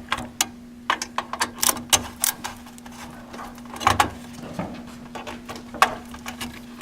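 Irregular sharp clicks and knocks of a screwdriver working the fasteners of a CPU heatsink, tightening it back onto the motherboard, over a steady low hum.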